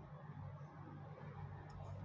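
Quiet room tone: a steady low hum with faint hiss and no distinct event.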